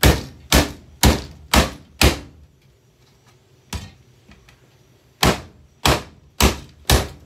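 Hammer blows smashing a Bissell handheld vacuum cleaner: five quick strikes about half a second apart, a single lighter one, then four more at a similar pace.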